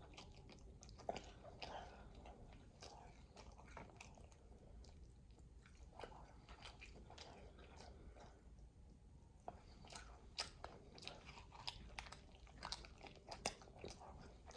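Close-miked, faint chewing and biting of buttery Dungeness crab, with many small sharp mouth clicks and crunches that come thicker and louder after about ten seconds.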